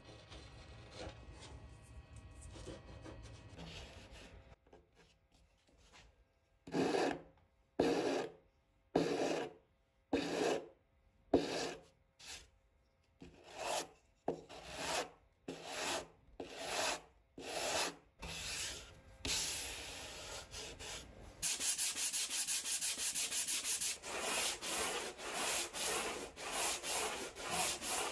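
Hand sanding a surfboard's fiberglass with sandpaper on a wooden block. It starts a few seconds in as separate back-and-forth strokes about once a second, then turns to faster, closer strokes over the last several seconds.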